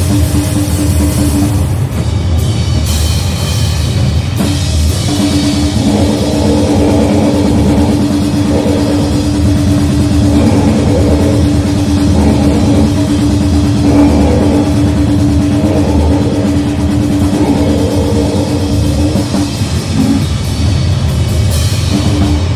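Loud, dense noise-grindcore music with drums under heavy distortion. A steady droning note runs through most of it, dropping out for a few seconds near the start and again near the end.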